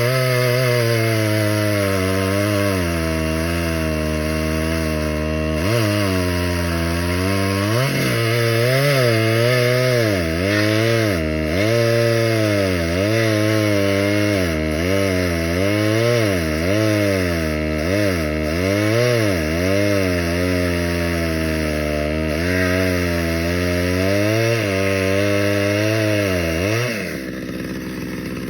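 Gas chainsaw running at high revs while cutting firewood, its engine pitch sagging under load and climbing back again and again. The engine note drops away about a second before the end.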